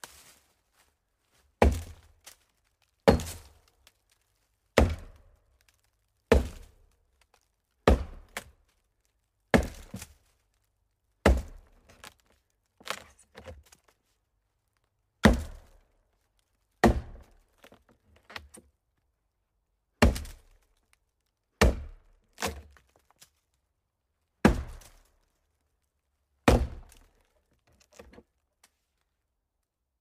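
Chopping strokes into a hollow tree trunk: a series of sharp, dull thunks about every one and a half seconds, each dying away quickly. A few strokes are lighter, and the last is faint.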